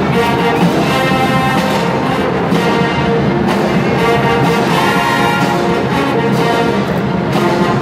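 Marching band playing a halftime show: a full brass section sounding sustained chords over the band's percussion, loud and steady.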